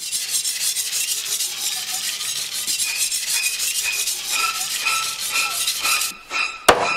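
A cleaver blade being sharpened with quick rasping strokes, a light ring sounding on each stroke from about the middle on. A few sharp knocks come near the end.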